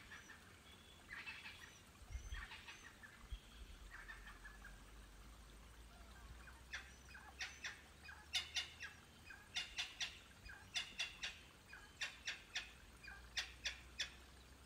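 Birds calling. First come a few scratchy, falling phrases, then a run of sharp, clipped notes in quick groups of two or three, about one group a second.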